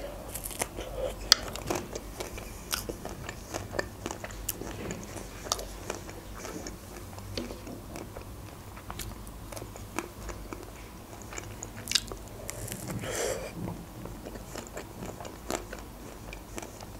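Close-miked biting and chewing of an Alpen Gold chocolate-coated ice cream bar, with scattered small crunches and clicks as the coating breaks.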